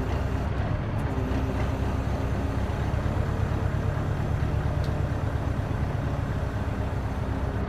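Scania 143's V8 diesel engine running steadily at low revs, with a faint whine whose pitch shifts now and then.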